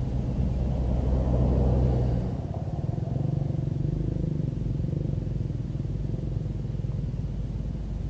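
A motor engine running close by, steady and louder for about the first two seconds, then dropping to a lower, slightly quieter running sound.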